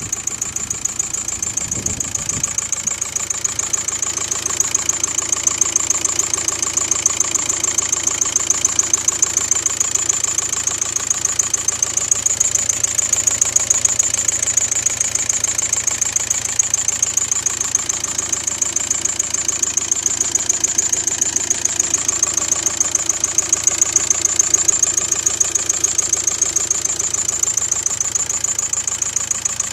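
Volkswagen Golf 5 1.9 TDI diesel engine idling with a fast, regular ticking knock, a noise that appeared after the camshaft and tappets were replaced.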